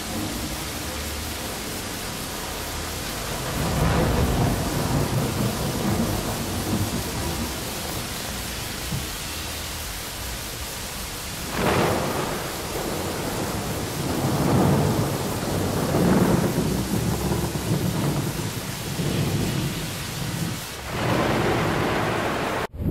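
Wind buffeting the microphone: a steady rush with several stronger, rumbling gusts, the first about four seconds in and more in the second half.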